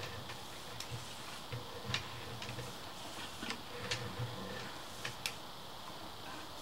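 Sewer inspection camera's push cable and reel being drawn back through the line, making irregular light clicks and ticks at about one or two a second.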